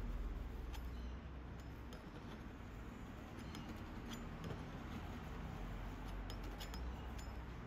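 Metal palette knife working paint on a canvas: faint scattered clicks and light scrapes as the blade touches and drags across the surface, over a low hum.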